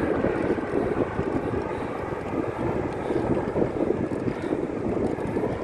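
Strong wind buffeting the microphone while riding a bicycle: a steady rushing noise.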